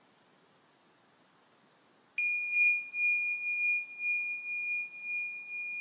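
Near silence, then about two seconds in a small metal bell is struck once: a clear, high ring that holds steady and slowly fades, its brightest overtones dying away first.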